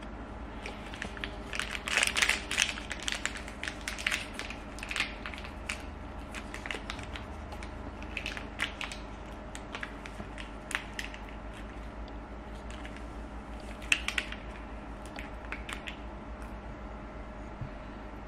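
Foil stick sachets of probiotic powder crinkling and crackling as they are handled, in irregular bursts that are thickest in the first half and again briefly about 14 seconds in.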